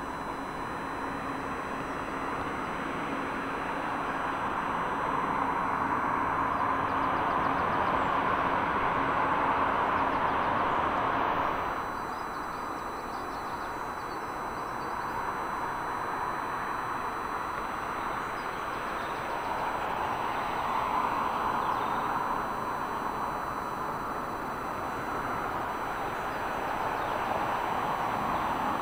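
Jet airliners landing: a broad rushing engine noise that swells to a peak, drops off abruptly about twelve seconds in, then builds again as another jet comes past.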